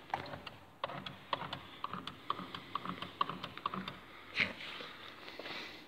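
A quick run of light, irregular clicks and taps, many with a short ringing ping, and a louder scrape or rustle about four and a half seconds in.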